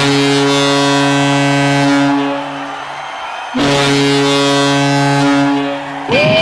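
Ice hockey arena goal horn, a deep air horn sounding two long blasts, each held about two seconds and then trailing off. Just before the end a new sound with a rising and falling pitch starts.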